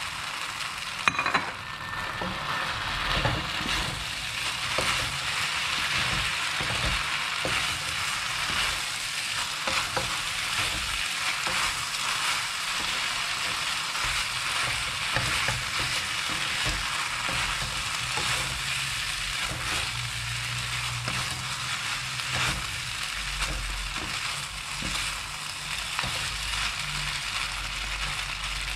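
Instant noodles stir-frying in a hot pan: a steady sizzle with the scrape and click of a utensil stirring them. One sharper knock comes about a second in.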